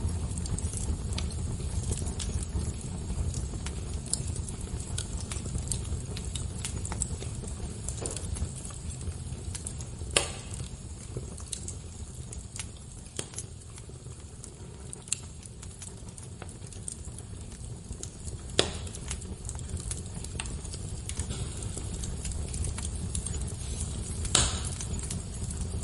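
Wood fire crackling: a steady run of small snaps and ticks over a low rumble, with three louder pops standing out.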